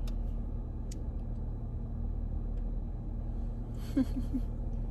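Steady low rumble of a car idling, heard from inside the cabin, with two faint clicks early on and a brief voice sound about four seconds in.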